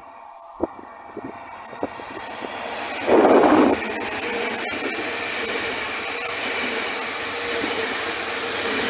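Electric multiple unit 48WEc-027 of Koleje Dolnośląskie running past a station platform. Its noise builds as it approaches, a brief loud gust comes about three seconds in as the front goes by, and then the passing carriages make a steady rushing rumble.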